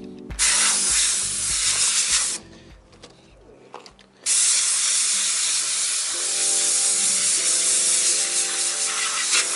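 Handheld Kärcher steam cleaner gun blowing steam in two blasts, a loud steady hiss: a short blast of about two seconds, then after a pause a longer one of about six seconds.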